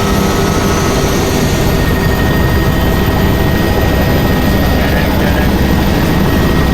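Helicopter turbine engine and rotor running steadily and loud, with a faint high whine that rises slightly about two seconds in.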